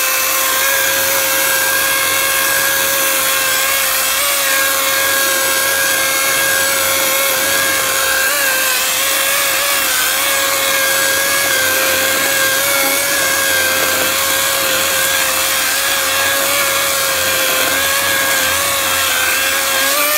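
A Kobalt 80 V brushless cordless chainsaw runs at full speed with a steady electric whine, its chain cutting through a tree trunk about ten inches thick. The pitch wavers slightly as the bar loads in the cut, and the motor winds down right at the end.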